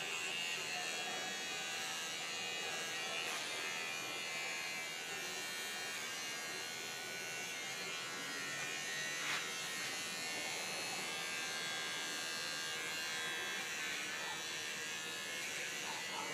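Electric hair clippers running steadily with a continuous buzz as they cut hair, with a brief click about nine seconds in.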